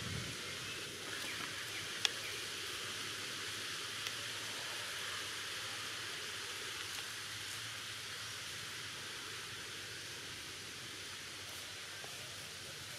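Steady outdoor background ambience, an even hiss, with a sharp tick about two seconds in and a fainter one about four seconds in.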